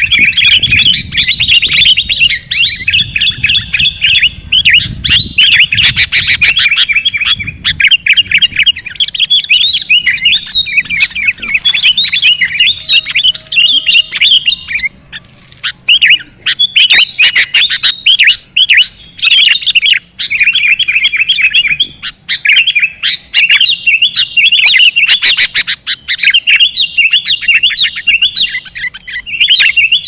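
Sooty-headed bulbul (kutilang) singing: a fast, unbroken stream of short chirping notes, pausing briefly twice. A low rumble sits under the song for the first few seconds.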